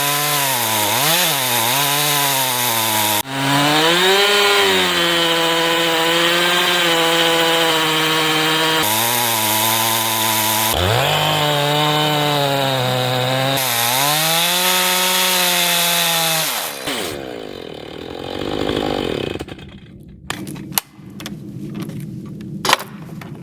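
Chainsaw ripping lengthwise through a black walnut log in a chainsaw mill cutting guide. The engine pitch sags and recovers several times as the bar is pushed through the cut. About 17 seconds in the saw is shut off and winds down, followed by a few sharp knocks and clicks.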